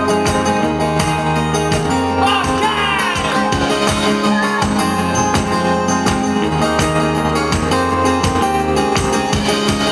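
Live rock band playing an acoustic set on acoustic guitar, bass guitar and drums, with a steady drum beat.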